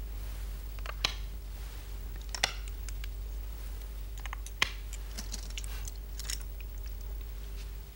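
Go stones clicking as they are set one after another onto a vertical demonstration go board: a handful of sharp single clicks a second or two apart, with lighter ticks between them.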